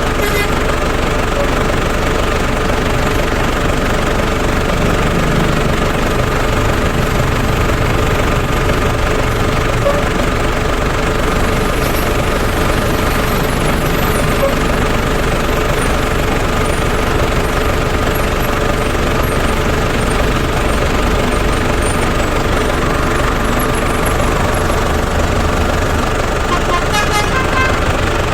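A truck engine running steadily, a loud even noise with no horn sounding.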